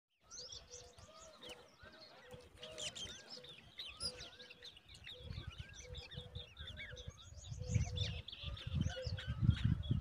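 Birds chirping: many quick, overlapping high calls, with a short lower note repeating evenly about twice a second behind them. A low rumbling noise comes in about halfway and is loudest near the end.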